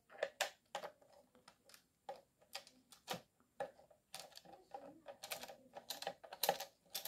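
Small screwdriver turning a screw out of an electric kettle's plastic base: a string of irregular light clicks and scrapes, coming thicker in the second half.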